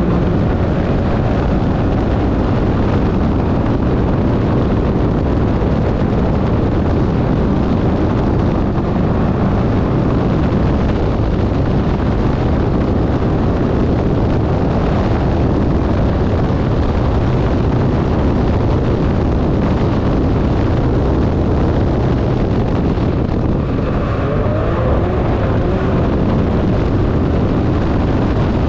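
Can-Am turbo UTV's turbocharged three-cylinder engine running hard at race speed over a dirt track, a loud steady noise mixed with wind rushing over the onboard microphone. A few faint rises and falls in pitch come through near the end.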